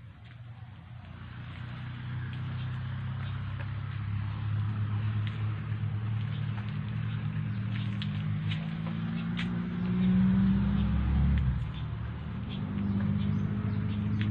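A low engine hum that builds over the first couple of seconds, rises in pitch and loudness about ten seconds in, and drops off suddenly about two seconds later before settling back to a steady run. Faint short high ticks or chirps sound over it.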